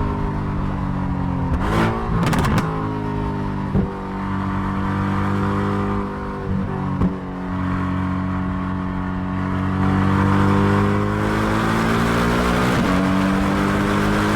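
Mercedes-AMG GT R's twin-turbo V8 pulling under acceleration, its pitch climbing slowly and dropping sharply at several quick gear changes.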